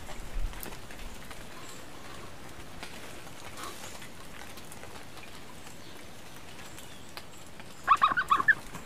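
Steady monsoon rain falling on forest foliage, an even hiss. Near the end a brief run of high squeaks cuts in, louder than the rain.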